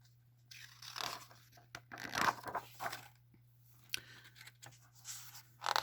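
Paper pages of a picture book rustling and swishing as they are handled and turned, with a light click a few seconds in and a last swish near the end.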